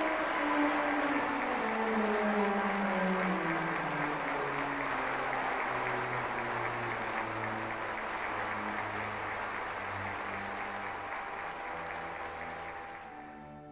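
Audience applauding over slow instrumental music whose notes step downward into a low bass line. The applause dies away near the end.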